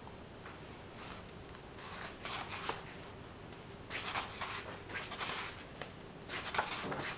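Pages of a paperback book being turned by hand: short dry paper rustles, the first about two seconds in and coming more often toward the end.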